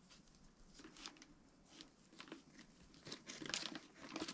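Faint crinkling and rustling of a thin plastic package as gloved hands rub assembly lube over a camshaft lying in it, getting busier and louder near the end.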